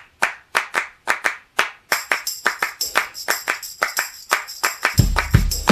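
Rhythmic hand claps opening a music track. About two seconds in a tambourine jingle joins the claps, and a bass beat comes in near the end.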